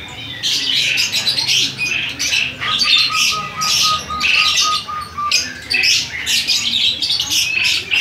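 A flock of caged lovebirds giving shrill, rapid chirps and squawks, overlapping almost without pause.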